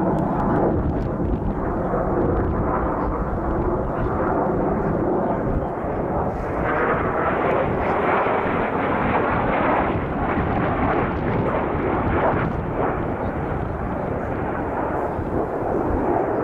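Jet engines of the Frecce Tricolori's Aermacchi MB-339 formation heard from the ground as a loud, steady rushing noise with no clear pitch, growing brighter about six and a half seconds in.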